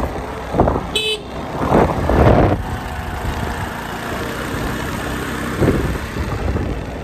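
Motor scooter ride heard from the pillion seat: road and engine noise with wind buffeting the phone microphone in gusts, and a short vehicle horn toot about a second in.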